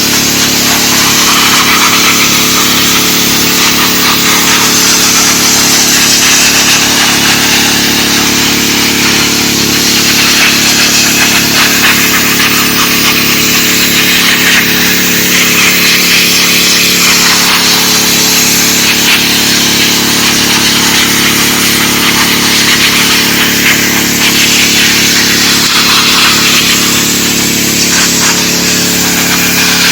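Dewalt 3600 psi gas pressure washer running steadily, its engine's hum under the loud hiss of the high-pressure spray on concrete. The hiss swells and fades as the wand moves.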